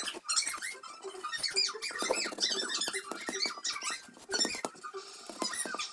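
A drawing tool squeaking as it is rubbed across a black board wall: many short, high squeaks that slide up and down in pitch, in quick irregular strokes.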